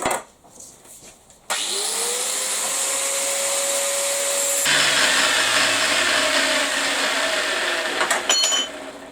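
An electric power tool starts up, its motor whine rising and then holding steady. A few seconds later the sound turns louder and rougher as it works into the material, then it stops near the end with a few sharp clicks and brief ringing.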